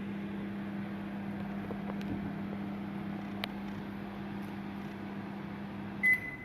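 Microwave water-heating unit running with a steady electrical hum, and a short high beep near the end.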